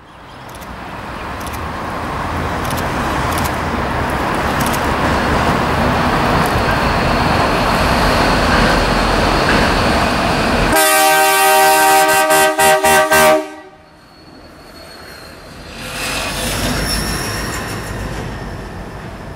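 QR National diesel locomotive LDP002, running light with VL362, approaching, its engine and wheel noise steadily growing louder. About eleven seconds in it sounds a long multi-note horn chord that breaks into several quick toots near the end. The noise then drops sharply and swells once more as the locomotives pass.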